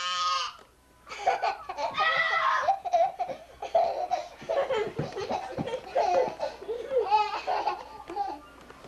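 A toddler laughing: choppy bursts of giggling with a few higher squeals. Before the laughter, a high held squeal breaks off about half a second in.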